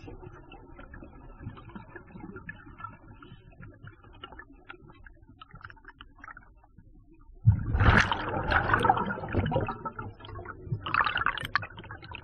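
Scuba diver's exhaled breath bubbling out of the regulator underwater: a sudden loud bubbling burst of about two seconds a little past halfway, and a shorter one near the end, with only faint bubbling and hiss before them.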